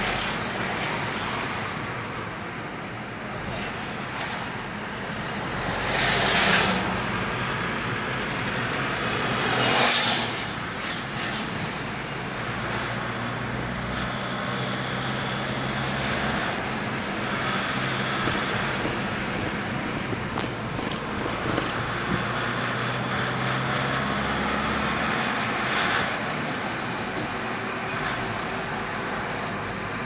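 Road traffic noise heard from inside a moving car in slow, dense traffic: a steady rush of engines and tyres. Passing vehicles swell up about six seconds in and again, louder, about ten seconds in.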